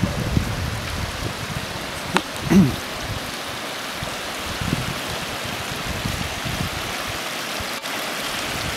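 Shallow creek water running steadily over flat sandstone ledges and small cascades. A brief low bump sounds about two and a half seconds in.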